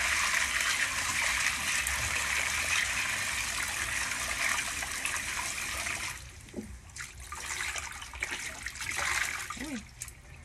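Tap water running steadily into a bowl of dried beans at a concrete sink, shutting off suddenly about six seconds in. After that, the rinse water is swished in the bowl and poured off, dribbling into the sink.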